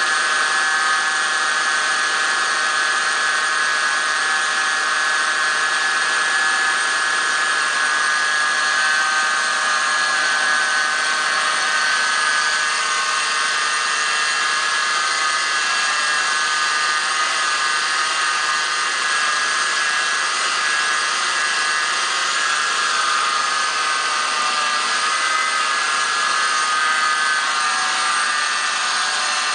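Whining noise from under the hood of a 2003 Toyota 4Runner with its 1GR V6 engine running: a steady, high whine of several close tones over a hiss, holding constant throughout.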